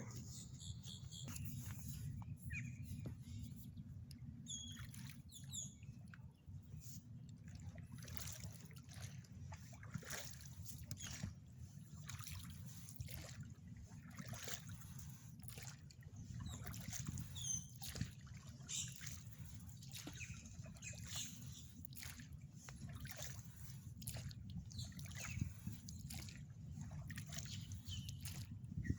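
Oars dipping and pulling through the water beside a small Intex Explorer 300 inflatable boat: irregular splashes, sloshes and drips stroke after stroke, over a steady low rumble.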